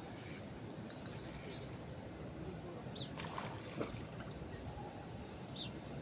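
Small songbirds chirping in short high bursts, several in quick succession early on and single chirps later, over a steady hiss of breeze and rippling river water. A brief rush of noise comes about halfway through.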